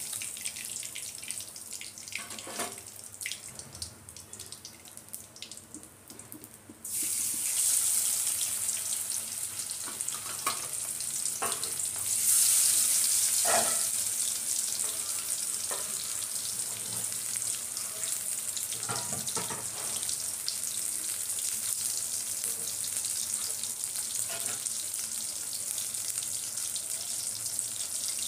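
Masala-coated bangda (Indian mackerel) shallow-frying in hot oil in a kadai: a continuous sizzle. It is faint for the first several seconds, jumps up sharply about seven seconds in and gets louder again around twelve seconds, with a few light clicks and pops.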